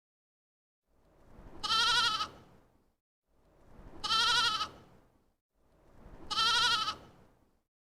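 An animal call sounding three times, each a wavering call of about two seconds, the three alike.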